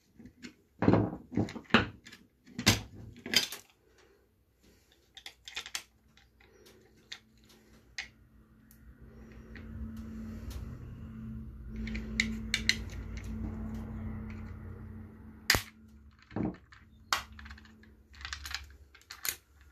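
Sharp plastic clicks and knocks as flat-head screwdrivers pry at the lens clips of a Spanninga Duxo bike light's plastic housing and the lens pops off, then more clicks near the end as the red lens is snapped back onto its base. A low steady hum swells and fades in the middle.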